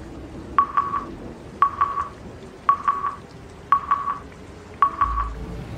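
Intro countdown sound effect: five electronic beeps, one a second, each a click followed by a short stuttering beep, over a low hiss. A deep low rumble swells in near the end.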